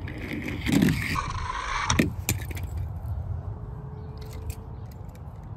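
Small die-cast metal toy cars clinking and clicking as they are handled and set down among each other: a couple of sharp clicks about two seconds in, and a cluster of light clicks near the end.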